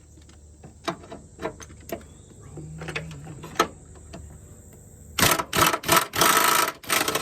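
Impact wrench snugging down motor mount bolts: several short rattling bursts about five seconds in, then a longer run of about a second. Before that come scattered metal clinks of tools and parts being handled.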